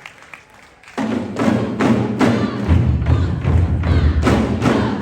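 Korean traditional drums struck by an ensemble: after a quiet moment, the drumming starts about a second in with a steady beat of about two hits a second, and deep booming bass strokes join in partway through.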